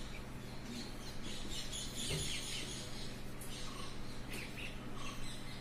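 Marker pen squeaking and scratching on a whiteboard while words are written, in short irregular strokes, busiest from about one to three seconds in.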